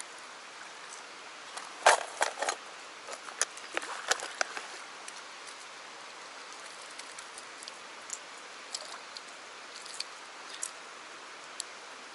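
Small metal clicks and jingles of treble hooks and hook rings being handled while the hooks on a hard fishing lure are swapped. A quick cluster comes about two to four and a half seconds in, then a few scattered ticks. Beneath them runs the steady rush of flowing river water.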